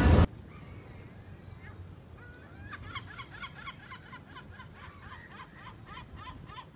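Loud tube-station escalator noise cuts off abruptly. It is followed by a bird calling in a quick series of short, hooked notes, about three or four a second, that starts about two seconds in.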